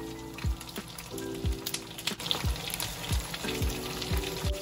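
Pork belly and vegetables sizzling in a frying pan as sliced green pepper and onion are dropped in, with light ticks as the pieces land. Background music with a steady beat plays over it, its low thumps the loudest sounds.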